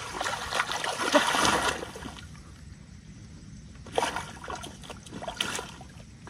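Shallow water splashing and sloshing as hands churn through it while catching fish by hand. The splashing comes in uneven bursts, loudest about a second in, then quieter, with short splashes again around four and five and a half seconds.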